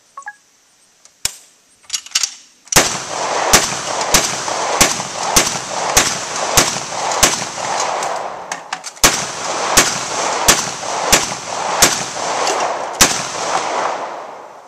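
Union Repeating Gun (Coffee Mill gun), a hand-cranked single-barrel repeating gun, firing shot after shot as its crank is turned, about one and a half shots a second, with the clatter of the mechanism between shots. A few scattered clicks and a single report come first, the steady fire starts about three seconds in, and it tails off near the end.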